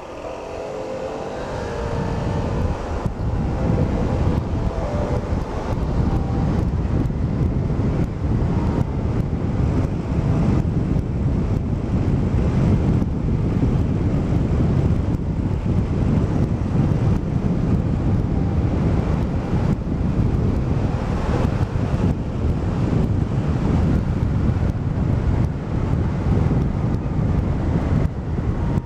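Wind rushing over the microphone of a scooter rider's helmet camera while riding, with engine and road drone underneath. It builds over the first few seconds, then holds steady.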